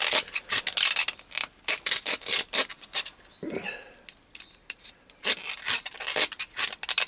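A hand deburring tool's swivel blade scraping the sharp edges off milled slots in a solid brass muzzle brake, in a quick, irregular run of short scrapes, several a second.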